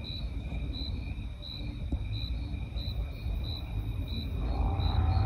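Crickets chirping, a run of short high chirps about two or three a second, over a low rumble that grows louder near the end.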